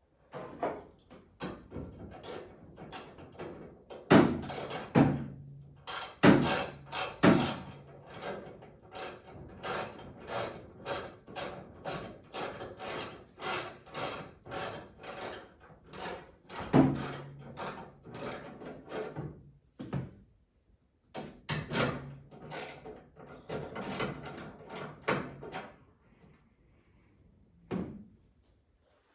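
A run of knocks, clicks and clunks from car body parts and hand tools being handled and fitted. The middle stretch has a fairly even series of taps, about two a second, with a short pause about twenty seconds in.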